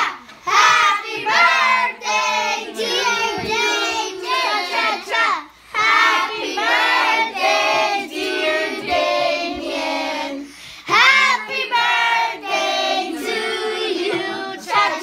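A small group of children and grown-ups singing a birthday song together, with short breaks between verses about five and a half and eleven seconds in.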